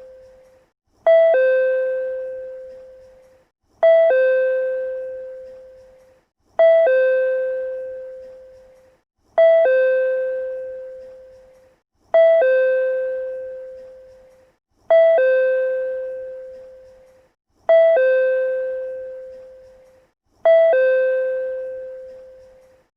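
Japanese railway PRC-type chime playing on a loop: a two-note ding-dong, a short higher note dropping to a longer lower note that rings away. It repeats about every three seconds, eight times.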